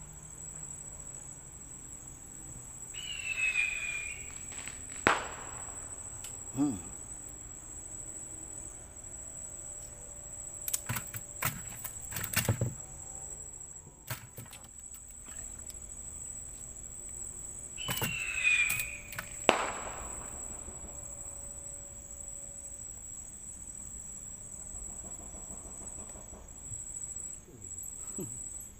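Steady high-pitched insect chorus, with a few sharp knocks and clicks: two brief swishy sounds each ending in a knock, and a cluster of clicks about halfway through.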